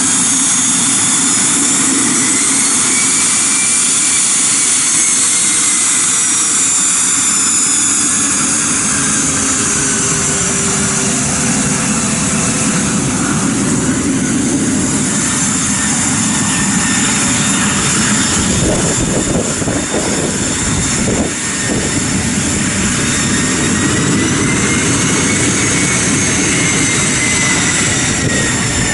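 Cessna 525B Citation CJ3 business jet taxiing with its two Williams FJ44 turbofans running, a steady jet noise with a high whine that slowly rises and falls in pitch as the jet turns.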